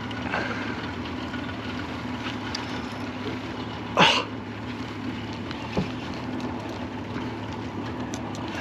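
Boat motor running steadily, a constant hum under the scene, with a short sharp noise about four seconds in.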